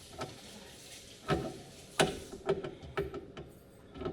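Irregular clicks and knocks of cabinet drawer hardware being worked on as a drawer is freed from its slides, starting about a second in.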